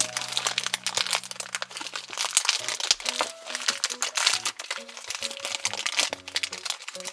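Thin black plastic blind bag crinkling loudly as hands pull and stretch it open, over light background music.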